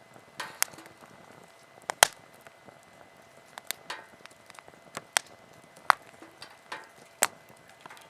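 Wood bonfire crackling, with sharp pops at irregular intervals over a low hiss, the loudest about two seconds in.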